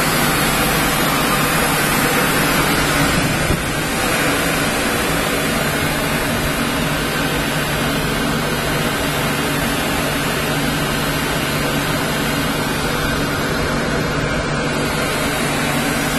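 Machinery of a running oil pyrolysis plant, its centrifugal blower fan among it: a steady, unchanging mechanical drone with a constant hum.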